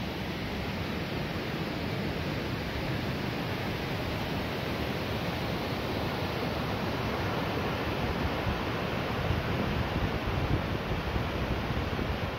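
Waterfall: a steady rush of white water pouring over rock, growing a little louder in the later seconds.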